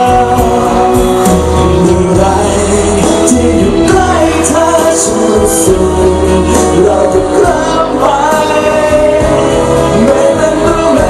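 Live pop song with a male singer singing into a microphone over band backing, the lyrics in Thai.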